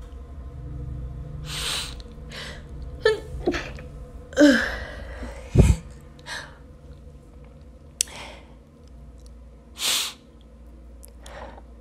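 A woman sneezing repeatedly: a string of separate sneezes, some with a short voiced catch of breath leading into them, the strongest about four and a half seconds in.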